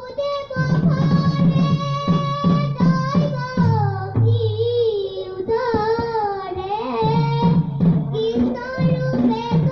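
A group of children singing one melody line, holding long wavering notes, accompanied by a double-headed hand drum beating a steady rhythm.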